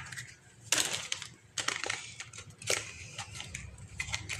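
Small cardboard nail-polish boxes being picked up and shuffled inside a cardboard shipping carton: several short rustles and scrapes of cardboard about a second apart.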